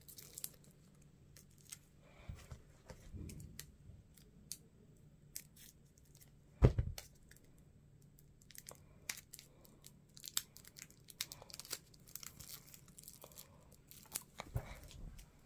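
Hands handling and opening small paper and plastic packaging: scattered soft crinkles and clicks, with one louder knock about seven seconds in.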